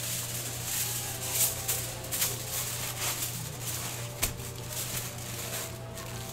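Irregular rustling and clattering of food-stall work, with one sharp click about four seconds in, over a steady low hum.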